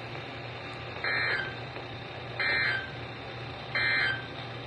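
NOAA Weather Radio SAME alert header played through a weather radio's speaker: three identical short bursts of warbling digital data tones about a second and a half apart, the coded header that announces a new warning, over a low hum from the receiver.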